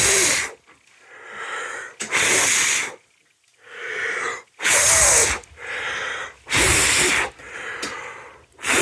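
A person blowing hard into a smoke detector to clear test smoke out of its chamber. There are about five loud breathy blasts, each under a second long and roughly two seconds apart, with quieter in-breaths between them.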